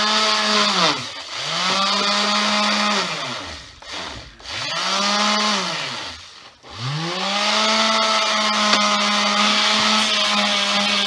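Electric palm sander working a steel axe head. It is switched on three times in quick succession, each time spinning up to a steady whine and winding back down, then left running at a steady pitch for the second half.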